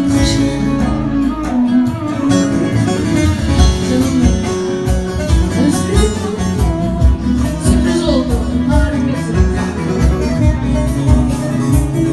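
Live Turkish folk music (türkü) from a small stage band: a plucked-string melody over a steady beat, loud and continuous.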